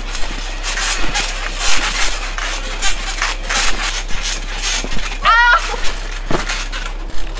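Several people jumping on a trampoline: sharp bounces on the mat, about two a second. A brief wavering high squeal comes a little past halfway.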